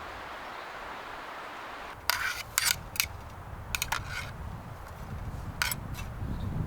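A steady rustling hiss of breeze, then from about two seconds in a string of sharp clicks and short clatters: utensils and food containers being handled while preparing a meal.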